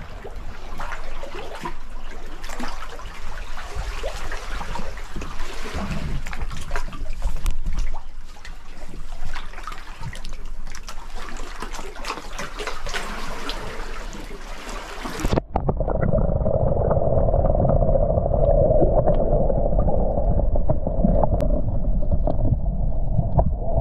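Seawater splashing and trickling around a wading spearfisher in the shallows. About two-thirds of the way through, the sound suddenly turns muffled as the microphone goes underwater, leaving a low underwater rumble with a steady hum.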